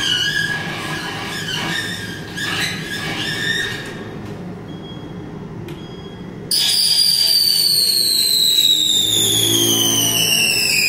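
Squealing and squeaking from an amplified everyday object being played on stage, then a quieter moment. About six and a half seconds in, a loud whistling tone starts suddenly and slides slowly down in pitch.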